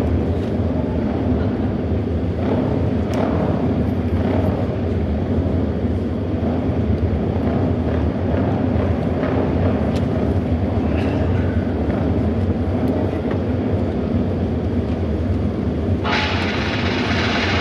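Auto race motorcycle engines running together as a steady low drone. Music starts near the end.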